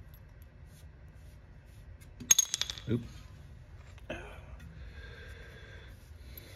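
Small metal hardware clinking: a quick run of bright, ringing clinks a little over two seconds in, then a single softer knock about four seconds in.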